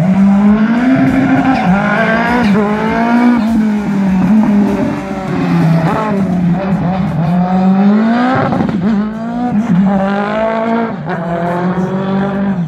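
Turbocharged RX3 rallycross car's engine running hard around the track, its revs climbing and falling several times through gear changes.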